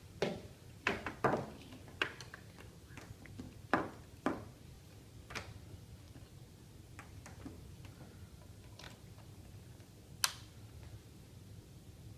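A microscope's power cord and plug being handled and pushed into a bench power socket: a string of sharp clicks and knocks, most of them in the first five seconds, with one more sharp click about ten seconds in, over a low steady hum.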